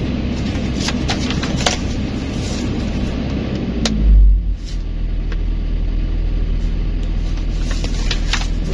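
Kobelco SK200 excavator's diesel engine running steadily, with a few light clicks. A little after four seconds a loud, deep rumble lasts about half a second, and the engine note then settles into a lower, steadier hum.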